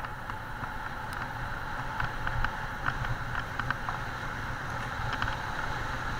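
Wind rushing over the camera and a bicycle rattling over a rough dirt track at speed, with scattered sharp clicks and knocks from the bumps.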